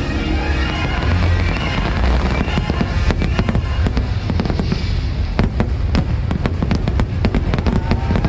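Aerial fireworks shells bursting in a rapid string of sharp bangs and crackles, coming thicker from about three seconds in, over the show's music soundtrack.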